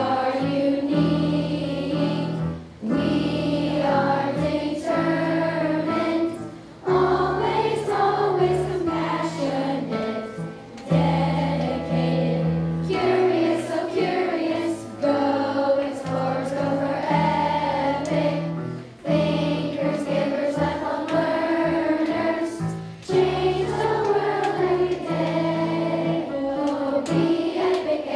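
A group of elementary schoolchildren singing a song together over a backing track with held low notes, in phrases of a few seconds with brief breaths between them.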